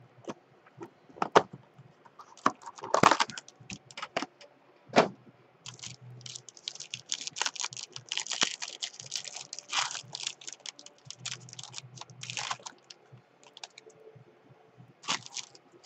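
Trading-card pack being opened by hand: a few sharp clicks as the cardboard pack box is handled, then a dense run of crinkling and crackling as the foil wrapper is torn open, with a short burst more near the end as the cards are pulled out.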